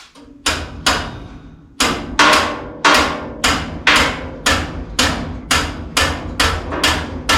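Hammer blows on metal, a steady run of about two strikes a second after two opening hits, each ringing briefly: driving a rear shock onto its mount.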